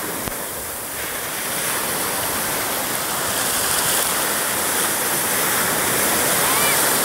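Sea surf breaking and washing up the sand, a steady rush of water that grows louder from about a second in.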